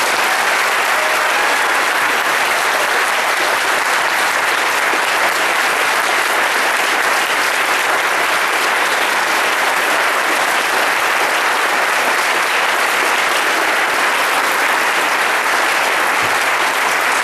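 An audience applauding, a long, steady round of clapping.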